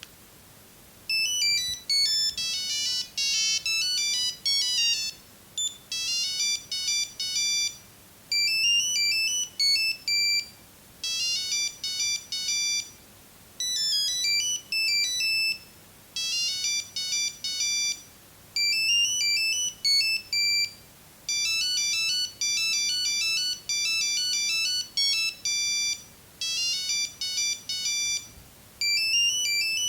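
Nokia 6310 mobile phone playing one of its built-in monophonic ringtones: a fast, high-pitched beeping melody in short phrases that repeat with brief gaps, starting about a second in.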